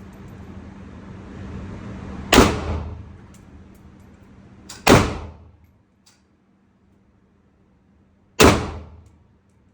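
SKS rifle firing 7.62×39 rounds: three single shots a few seconds apart, each with a short ringing tail.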